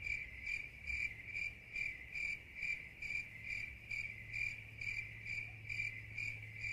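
Crickets chirping as an inserted sound effect: an even, high chirp repeating a little over twice a second over a low steady hum, the stock cue for an awkward wait with nobody arriving.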